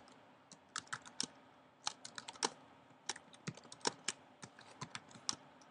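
Typing on a computer keyboard: irregular runs of keystroke clicks with short pauses between them.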